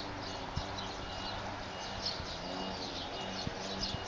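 Small birds chirping and twittering over and over, with a faint steady low hum underneath.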